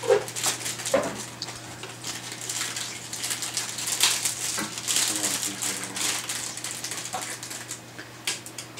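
Eyeglasses clicking and rattling against one another as a pile of them is picked through and handled, a quick, irregular run of light clicks, with a few brief murmured voices.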